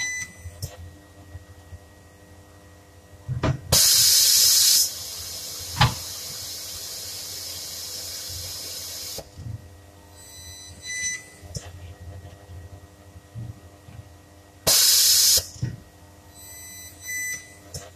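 Pneumatic resistance spot-welding gun on a car body panel: loud bursts of air hiss about a second long, about four seconds in and again near fifteen seconds, the first trailing into a softer steady hiss for several seconds.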